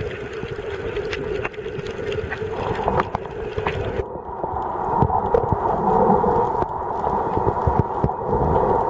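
Underwater ambient noise picked up by a camera, a muffled rumble with scattered sharp clicks. About four seconds in the sound changes abruptly and turns duller and more muffled.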